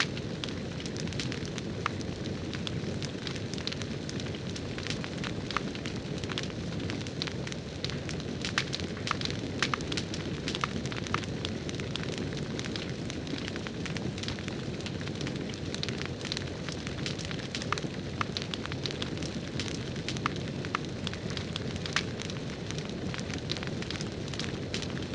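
Crackling campfire sound from the Firewood Home fire toy: a steady low rustle with frequent sharp, irregular pops and snaps.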